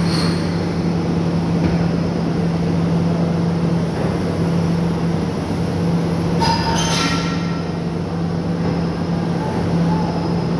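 Heavy excavator diesel engines running steadily with a constant low hum, and a short metallic squeal from the machinery about six and a half seconds in.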